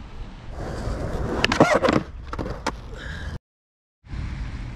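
Several sharp clacks and scuffs over a rushing noise, the loudest about a second and a half to two seconds in, then a sudden cut to silence and a steady, even rushing noise.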